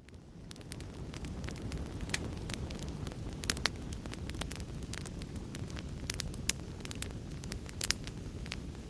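Wood fire crackling: irregular sharp pops and snaps over a steady low rumble of burning. It fades in over about the first second.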